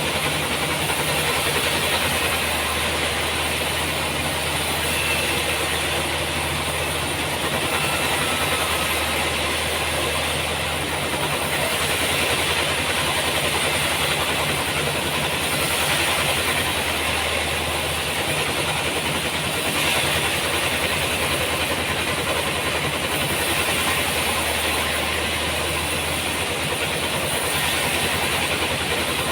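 Sawmill running: a steady machine drone over a broad hiss of the saw. The low hum swells and fades every few seconds as the load changes.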